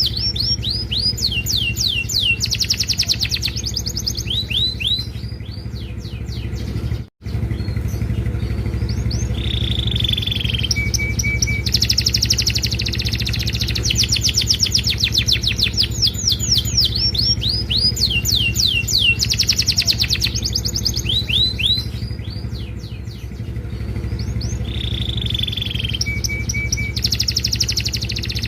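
Domestic canary singing continuously: fast trills of repeated downward-sweeping notes, rolling phrases and a short held whistle. The song cuts out briefly about seven seconds in. A steady low hum lies underneath.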